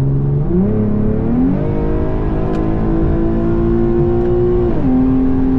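Infiniti Q50's engine and exhaust under hard acceleration, heard from inside the cabin: the revs climb in two quick steps in the first two seconds, keep rising slowly, then drop sharply near the end and hold steady.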